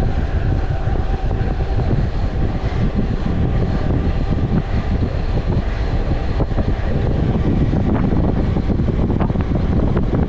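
Wind buffeting the microphone of a mountain bike coasting fast downhill on a paved road: a loud, steady, deep rumble that rises and falls.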